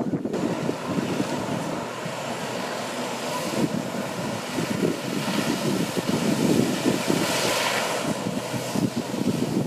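Water jetpack running: the engine of the hose-fed pump craft drones steadily while the water jets rush and spray, with wind buffeting the microphone. The spray hiss grows louder as the flyer comes down into the water near the end.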